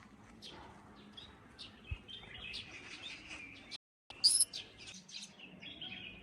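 A young pet bird chirping: a scatter of short, high chirps, with a louder call just after a brief gap about four seconds in.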